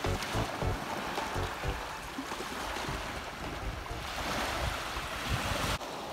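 Small waves breaking and washing onto a sandy beach, a steady rushing surf that swells again about four seconds in, with a low rumble of wind on the microphone underneath.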